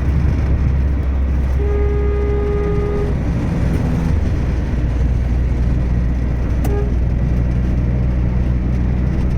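Steady low rumble of a Maruti Suzuki Swift petrol car driving on a highway on its test run, running smoothly on its replacement engine. A vehicle horn sounds for about a second and a half early on, and a much shorter toot comes near the end.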